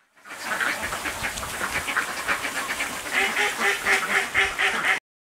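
Ducks quacking in a rapid, continuous chatter of many calls, growing louder about three seconds in, then cut off abruptly near the end.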